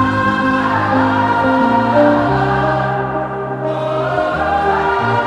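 Background music: a choir singing long, sustained chords that shift slowly.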